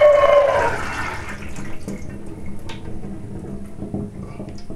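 Soaking water pouring and trickling out of a tipped glass jar of soaked whole peas into a sink. A ringing tone in the first second drops a little in pitch as the stream runs, then it tails off to a weaker trickle with a few small knocks.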